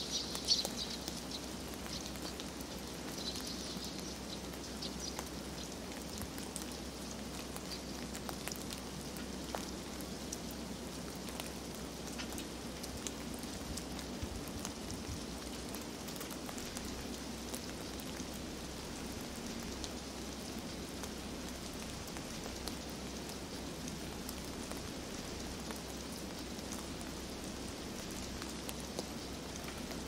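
Heavy wet snowfall pattering steadily on surfaces: an even, rain-like hiss dotted with many tiny ticks. A few faint high chirps come in the first few seconds.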